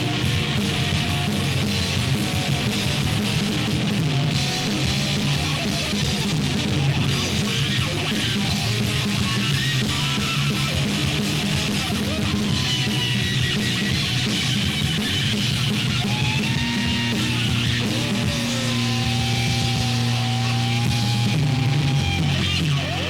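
Loud, dense noise rock: a wall of distorted electric guitar over steady low droning tones, with a few wavering, sliding higher tones in the second half.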